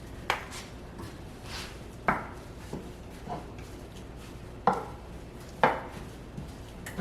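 A spatula knocking against a cooking pot while breaking up ground chuck as it browns: about six sharp knocks at uneven intervals, the loudest near the middle.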